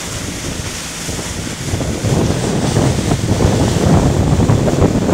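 Wind buffeting the microphone and water rushing and splashing along the hull of a small open boat under way at speed on choppy sea. The low buffeting grows heavier about two seconds in.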